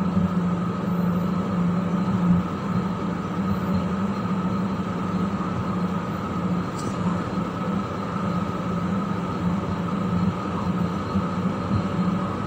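Steady background hum: a constant low drone with a fainter higher tone over an even hiss, unchanging throughout.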